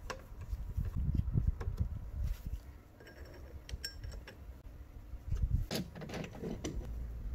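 A hex key and screws worked into the corners of a Sculpfun S30 laser engraver's metal frame: small metallic clicks and taps over dull handling knocks, with a few short light metallic rings.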